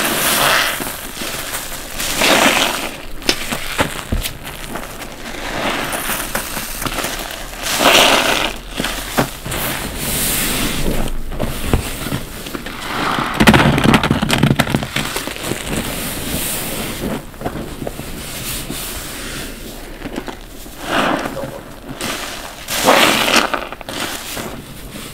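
Soapy bath sponges squeezed by rubber-gloved hands: wet, crackling squelches of lather and water forced out, one squeeze every few seconds. The loudest stretch, about halfway through, is the sponges worked and sloshed in the soapy water.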